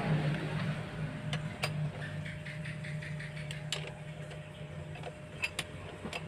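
Long-handled ratchet socket wrench clicking in a quick even run and clinking sharply against metal as engine mount bolts are tightened, over a steady low hum.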